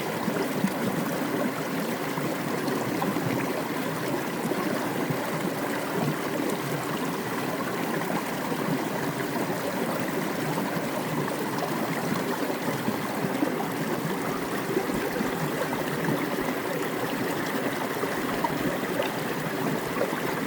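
Mountain creek water cascading down a rock, a steady splashing rush with small irregular gurgles.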